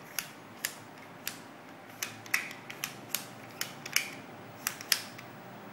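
Small plastic toy cars clicking as they are slid and snapped along the tracks of a plastic sliding-block parking puzzle: a dozen or so short, sharp clicks at irregular intervals.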